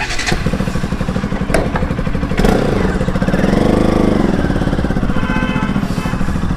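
Motorcycle engine running, rising in pitch and falling back once in the middle as it is revved, then cutting off abruptly near the end.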